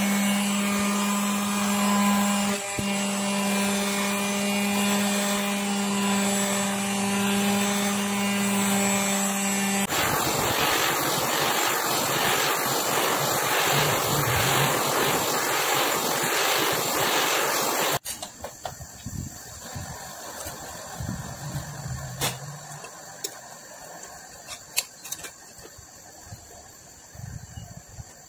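An electric heat gun running with a steady hum for about ten seconds, then a torch flame hissing steadily. After a sudden cut it turns much quieter, with scattered clicks and scrapes as a knife blade is worked under the floodlight's plastic frame.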